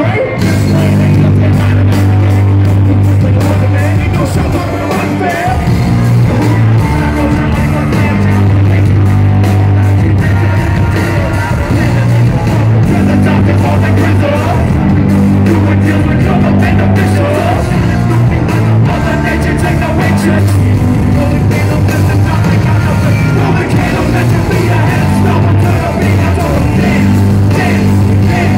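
Live band music played loud through stage speaker stacks, with a heavy, repeating bass line.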